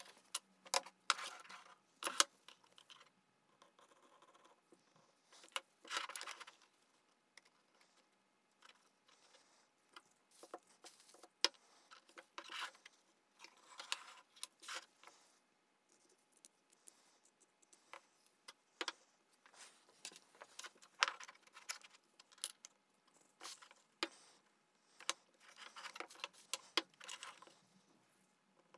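Thin wooden strips handled on a wooden workbench: scattered light taps and clicks of wood on wood, with short scraping and rubbing sounds.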